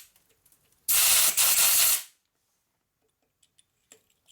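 Compressed-air blow gun giving one hissing blast about a second long, blowing metal chips out of a freshly drilled hole. The end of a shorter blast fades away at the very start.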